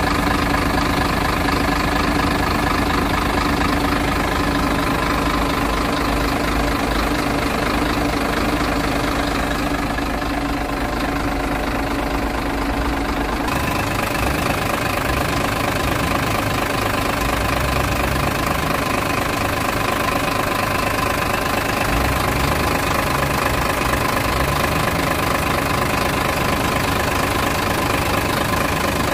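Sinotruk HOWO tractor truck's diesel engine idling steadily, its tone changing abruptly about halfway through.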